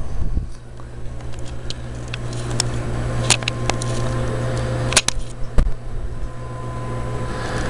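Steady electric hum of the aquaponics water pump running, with water spraying out of small pinholes drilled in the PVC feed tubes onto the grow-bed gravel. A few sharp clicks come midway.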